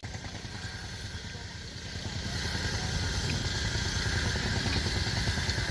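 Diesel engine of a heavy construction machine running steadily with a low rumble, growing louder from about two seconds in.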